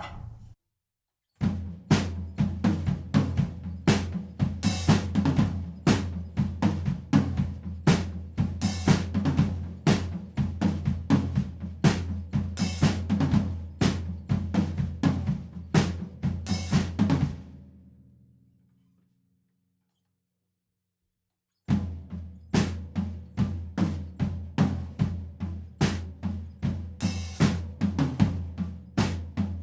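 Acoustic drum kit played in a four-on-the-floor groove: bass drum on every beat under eighth notes on the floor tom, with snare and cymbal accents. It rings out and stops about 18 seconds in, then after about three seconds of silence the same groove starts again, slowed down.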